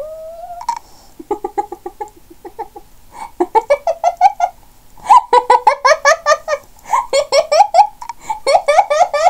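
A woman laughing hard in several runs of fast, breathy giggles with short pauses between them, the runs growing louder in the second half.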